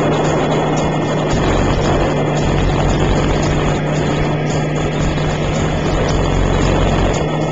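Belt-CP electric RC helicopter in flight: its motor and rotor running steadily with a constant low hum under a heavy, even hiss.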